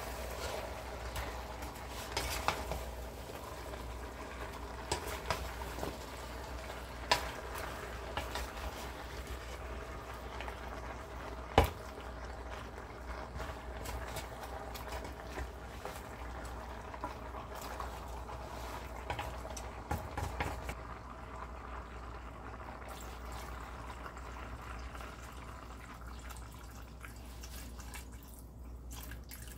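Chicken pieces and chopped vegetables sizzling in a stainless steel pan while a wooden spoon stirs them, knocking and scraping against the pan, with one sharp knock about twelve seconds in. Near the end water is poured into the pan from a plastic measuring jug.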